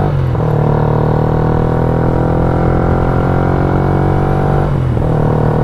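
Yamaha Y15ZR's 150 cc single-cylinder four-stroke engine running steadily under way; its note breaks briefly twice, just after the start and again near the end. The engine is freshly rebuilt with a cast-iron cylinder block and is being ridden gently to run it in.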